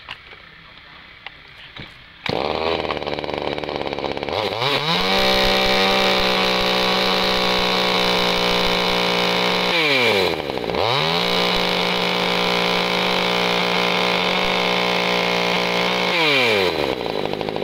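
Tanaka 26cc top-handle two-stroke chainsaw starts about two seconds in and idles briefly. It is then revved to full throttle and held there. Near the middle it drops briefly toward idle and revs straight back up, and near the end it falls back to idle.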